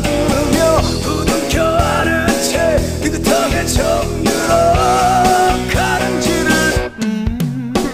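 Background rock music with drums and a melody line, breaking off briefly about seven seconds in.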